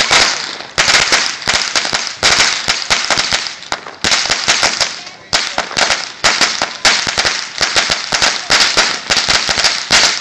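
A long string of firecrackers, a 4,000-cracker roll, going off in a dense, rapid run of sharp bangs that comes in uneven surges.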